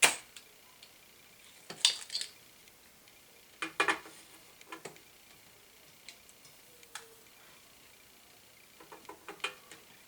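Sharp clicks and light metallic clinks of small hand tools at work during desoldering, coming in short clusters, the loudest right at the start.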